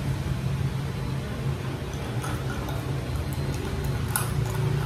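Milk tea being sipped through a straw, with a few short sucking sounds about two and four seconds in, over a steady low background hum.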